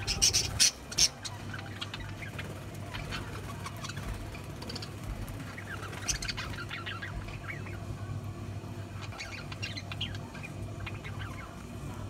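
A flock of budgerigars chirping and chattering, with a few loud, sharp calls in the first second, then scattered short chirps.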